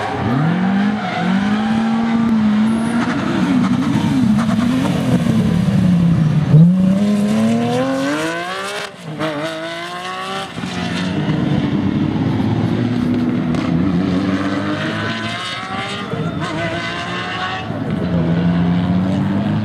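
Rally car engines running hard on a tarmac course, revving up in rising sweeps and dropping back between them. The loudest moment comes about six and a half seconds in, with a long climbing rev that breaks off near nine seconds.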